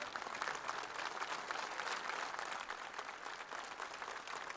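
Large audience applauding steadily, a dense mass of many hands clapping at once.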